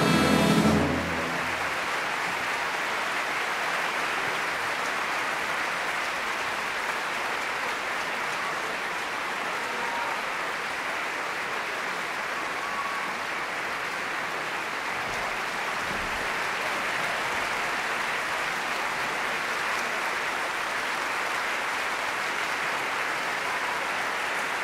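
Orchestral music stops about a second in, giving way to a large theatre audience's steady applause.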